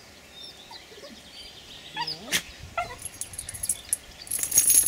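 Two small dogs play-fighting, one giving a couple of short rising squeals about two seconds in. Near the end the metal harness and collar hardware jingle loudly as the dogs move.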